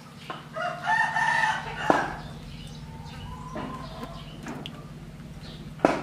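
A rooster crowing once, a drawn-out call of about a second and a half in stepped pitches, with a fainter call a little later. Two sharp knocks stand out, one about two seconds in and one near the end, over a steady low hum.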